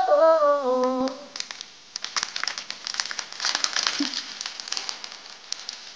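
A thin plastic water bottle squeezed and twisted in the hands, crinkling and crackling in quick, irregular clicks for several seconds. It opens with a man's high, wavering vocal note that stops about a second in.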